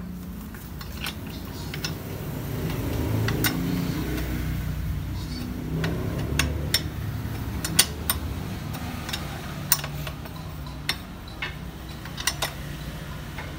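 Irregular sharp metallic clicks and clinks of a hand wrench on a scooter's rear shock absorber mounting bolt as the shock is fastened in place.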